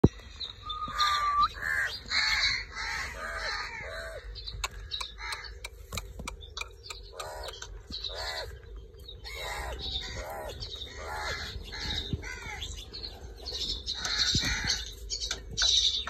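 Alexandrine parakeet giving repeated short calls, with a run of sharp clicks a few seconds in as its beak works at a hard plastic toy.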